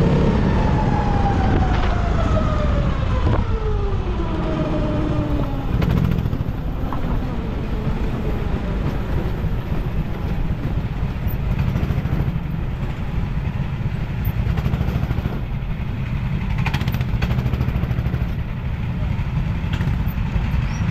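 Rental kart's engine heard from on board, its note falling steadily as the kart comes off the throttle and slows over the first five or six seconds. It then runs with a steady low rumble at walking pace.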